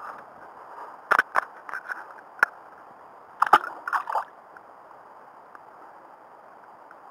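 Water splashing as a caught perch is let go by hand into the river: several sharp splashes and slaps over the first four seconds or so, then only a faint steady hiss of background noise.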